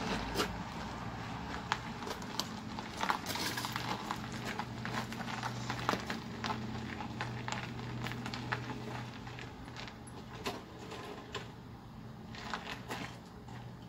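Gravel crunching and clicking under boots and tyres as a motorcycle is walked by hand, over a faint steady low hum.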